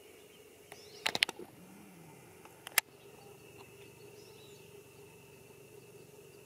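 Faint steady background hum with a thin high steady tone, broken by a quick run of four or five sharp clicks about a second in and two more sharp clicks a little under three seconds in.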